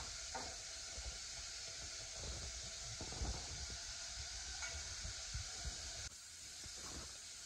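Onions, green chillies and tomatoes sizzling as they fry in a pan, with short knocks and scrapes of a spoon stirring them. The hiss eases a little about six seconds in.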